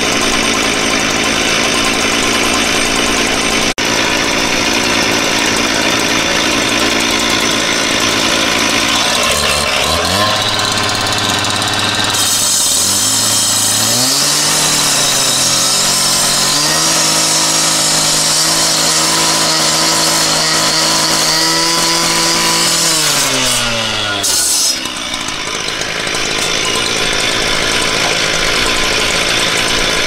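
Two-stroke petrol disc cutter running at idle, then revved up at about ten seconds and grinding through a clay brick with a harsh high hiss for about twelve seconds, its engine pitch falling back to idle near the end.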